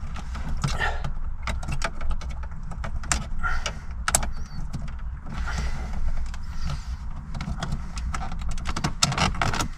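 Plastic dashboard trim in a Mini Clubman being pushed and clipped back into place by hand: a string of irregular clicks and knocks over a steady low rumble.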